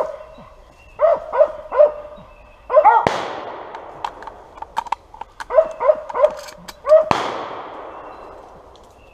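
Hunting dogs barking at a squirrel in the trees, broken by two gunshots about four seconds apart, each crack ringing out and dying away slowly through the woods. The dogs bark in quick runs of three or four between the shots.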